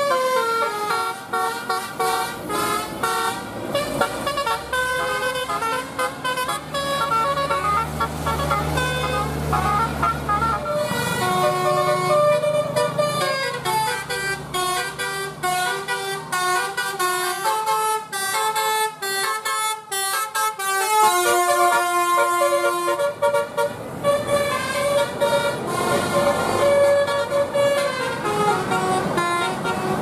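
Tour-bus telolet horns: a bank of roof-mounted air horns playing a quick melody, note after note in steady tones. A bus engine rumbles underneath for a few seconds near the middle.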